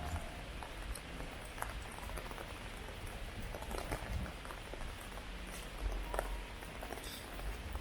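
Heavy rain falling, an even hiss with many scattered close drops ticking, and a low rumble about six seconds in.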